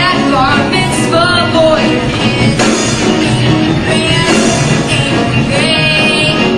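Musical-theatre number: a young cast singing over a rock-style accompaniment.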